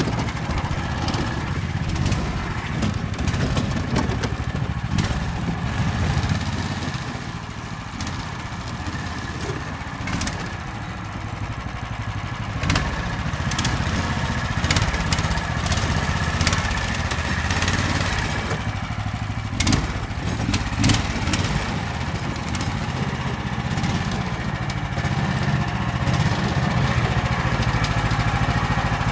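Small engine of a Snowdog tracked sled running steadily, with a few sharp knocks and clatters over it.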